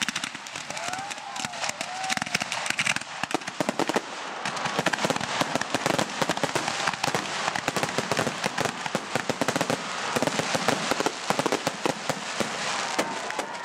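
Fireworks going off: a dense, continuous crackle of many rapid small bangs, like strings of firecrackers.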